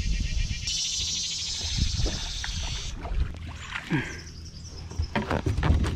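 A hooked smallmouth bass being played and netted beside a kayak: water splashing and knocks against the hull and landing net. A high, rapid buzzing begins about a second in and stops at three seconds.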